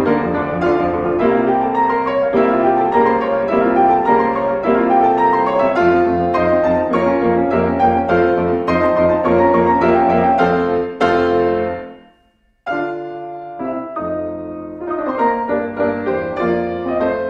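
Solo piano music: a run of notes that dies away about twelve seconds in, breaks off for a moment, then starts again.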